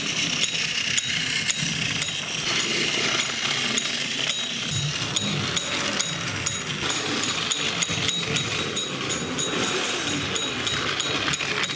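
Battery-powered Plarail toy train running on plastic track, its small motor and gears making a steady whirring rattle. Over it a quick, regular ting: the bell of the towed Tekoro de Chirin push-along Percy, which rings as its wheels turn.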